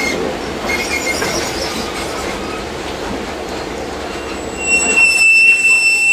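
Heritage passenger train rolling around a curve, its steel carriage wheels rumbling on the rails with a couple of brief squeals near the start. About two-thirds of the way through, a loud, steady, high-pitched wheel squeal sets in and becomes the loudest sound.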